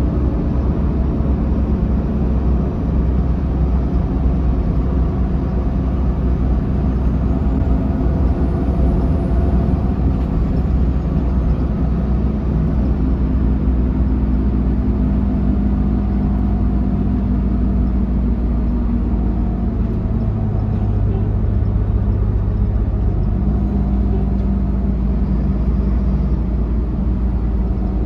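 Cabin sound of a 2005 Mercedes-Benz OH1728 bus under way: a steady engine drone and road rumble. A faint whine, typical of its ZF automatic transmission, rises and falls about eight seconds in.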